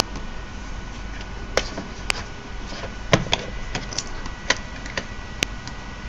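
Scattered sharp plastic clicks and taps, a dozen or so at irregular intervals, from hands handling a fischertechnik Bluetooth controller and receiver while trying to pair them. The loudest cluster comes about three seconds in.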